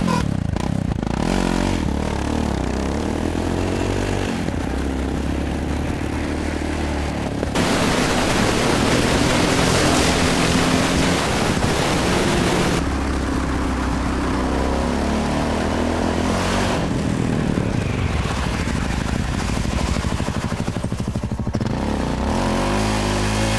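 Yamaha XT660R single-cylinder engine pulling the motorcycle up an icy bobsled track on ice-studded tyres, its pitch rising and falling with the throttle. A louder rushing hiss covers it for several seconds in the middle.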